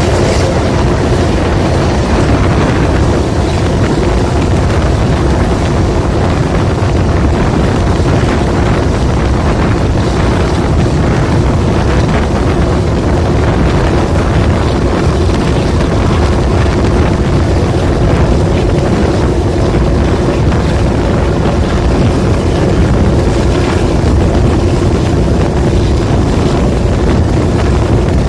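TCDD DE 24000 diesel-electric locomotive hauling the train at steady speed: an even engine drone with a steady hum, mixed with rolling noise and rushing wind, heard from an open coach window.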